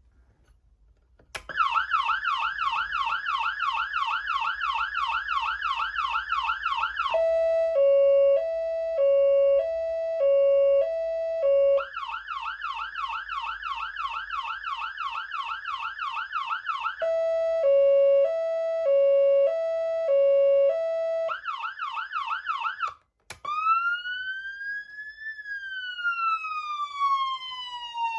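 Whelen ALPHA electronic siren amplifier sounding its tones in turn: a fast yelp of quick up-and-down sweeps starts about a second and a half in and switches twice to a two-note hi-lo and back. After a brief cut-out near the end it goes into a slow wail that rises, falls and starts to rise again.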